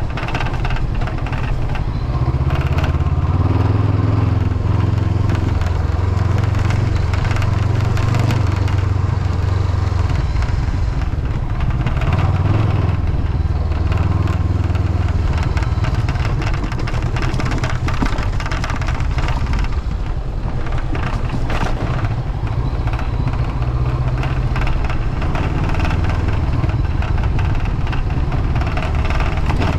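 Honda CB500X motorcycle's parallel-twin engine running while under way, its pitch stepping up and down with throttle and gear changes. Mixed in is a loose windshield rattling because a mounting screw is missing, along with a crunching, clattering noise from the road surface.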